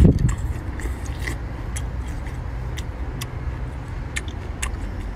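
A person chewing a mouthful of seafood with wet mouth clicks and smacks, the loudest right at the start, over a steady low rumble.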